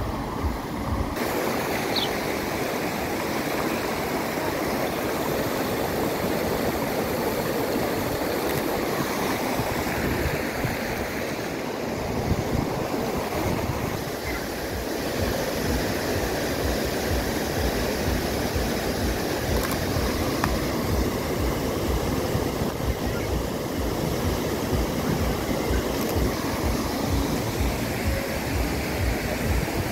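Steady rushing and splashing of a large ornamental fountain, its tall jets of water falling back into the basin.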